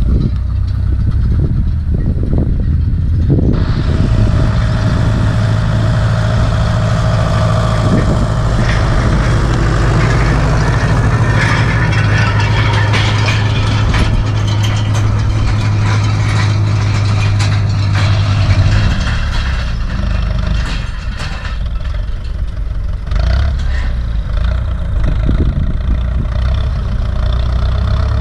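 Ursus C-360 tractor's turbocharged four-cylinder diesel running steadily under load while pulling a land roller. About three seconds in a brighter, hissier edge joins the engine note, and a little past halfway the engine drops to a lower, quieter running.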